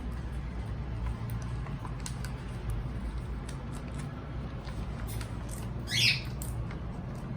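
Cockatiel giving one short, shrill chirp about six seconds in, over scattered faint clicks and a steady low hum.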